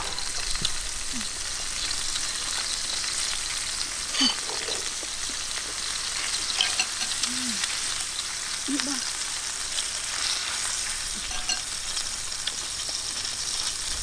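Beef slices and onion sizzling in a stainless steel pan on a portable butane gas stove: a steady high hiss with faint crackles.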